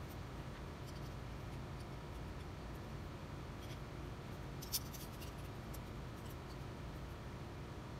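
Hands handling compass plane parts on a workbench: faint scrapes and clicks over a low steady hum, with one sharp click a little past halfway as a steel plane part is picked up.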